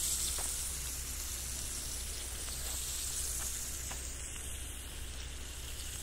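Meat sizzling as it cooks: a steady hiss with a few faint clicks.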